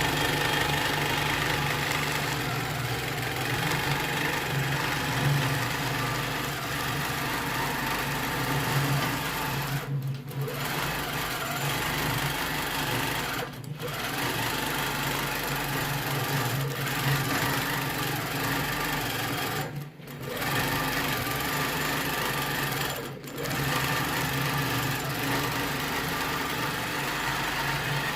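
Electric sewing machine stitching steadily, its motor stopping for a moment four times.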